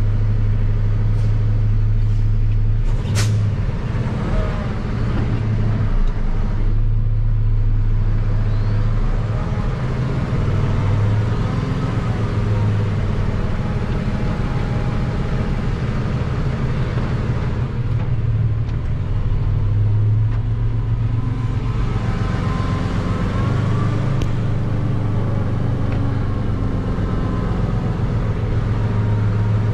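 Diesel engine of a tractor-trailer truck running at low speed: a steady low drone that drifts up and down a little in pitch as the driver works the throttle. There is a brief sharp click about three seconds in.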